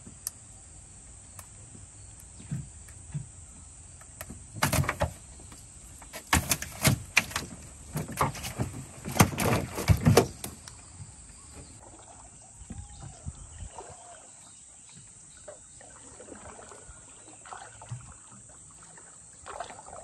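A wet gill net being paid out over the side of a wooden dugout canoe: a run of splashes and knocks from about five to ten seconds in as the net and its weights drop into the water and strike the hull, then quieter handling. Steady high insect drone throughout.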